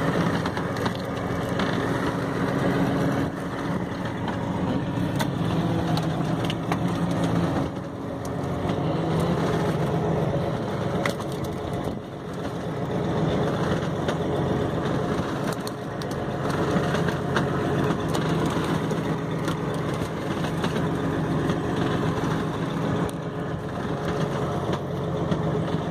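A fishing boat's engine running steadily, with scattered knocks and clatters over it.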